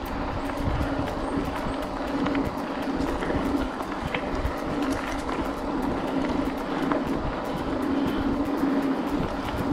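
Mountain bike rolling over a gravel trail: steady tyre rumble and crunch of small stones, with a steady hum and wind on the microphone.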